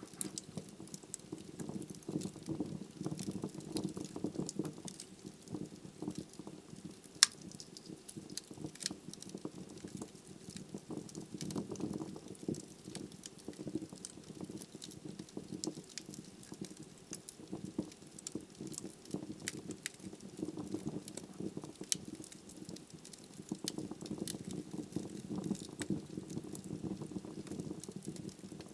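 Wood fire burning logs: a low, wavering rush of flames with frequent sharp crackles and pops, one louder pop about seven seconds in.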